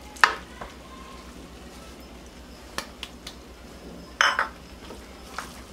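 A few taps and clinks of a wooden spoon and a small metal bowl against each other and the rim of a metal pan as chopped culantro is knocked out into the rice. A sharp tap comes just after the start and a brief louder clatter about four seconds in.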